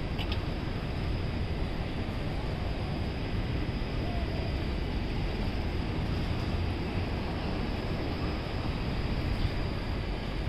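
Steady city street ambience: a constant rumble and hiss of traffic, with no single event standing out.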